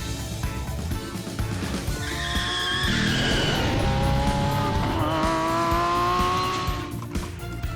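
Car sound effect over background music: a tyre squeal followed by an engine revving, rising steadily in pitch and ending about seven seconds in.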